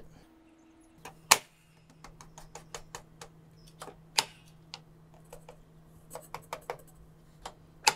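Irregular light clicks and taps of a table saw's rip fence and a wooden block being nudged against each other to set the fence, with a sharper knock about a second and a half in, over a faint steady hum.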